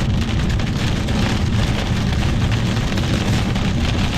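Heavy rain hitting the car, heard from inside the cabin over steady road noise.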